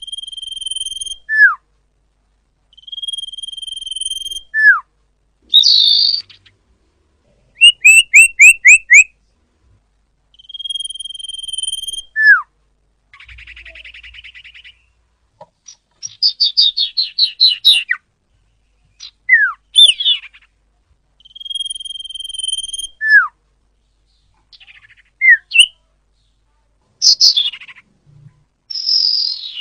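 A sirpu (sirdung) songbird singing a varied song in separate phrases with short pauses: held high whistles that end in a quick falling note, alternating with rapid trills and chattering runs.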